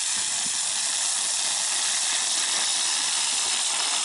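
Ground firework spraying sparks with a steady hiss.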